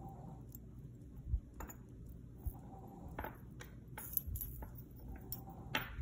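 Thin metal necklace chains and a metal bangle clinking and jingling faintly as a tangle of chains is worked apart by hand, with a soft bump about a second in and a few sharper clinks in the second half.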